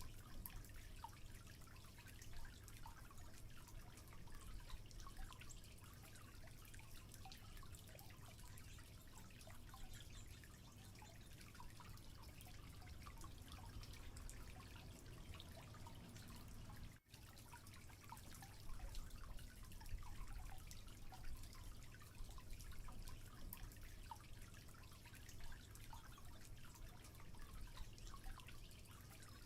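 Faint outdoor background ambience: a low steady hum with many small, scattered ticks, and a brief dropout about two-thirds of the way through.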